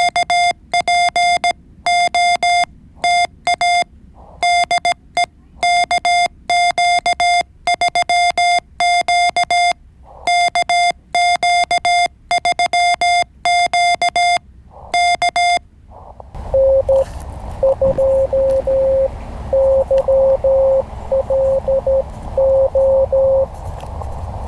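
Morse code (CW) from an amateur radio transceiver. For about fifteen seconds a clean, fairly high keyer sidetone beeps out dots and dashes. After a short gap, a lower-pitched Morse signal is heard through the receiver over steady band hiss.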